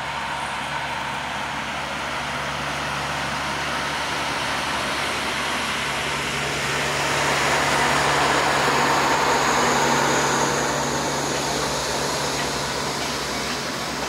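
Kominato Railway diesel train running out of the station: a steady engine drone with running noise, which grows louder through the middle and eases off near the end.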